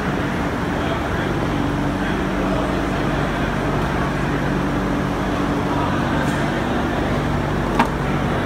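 Steady workshop background hum and rumble, with a single sharp click near the end.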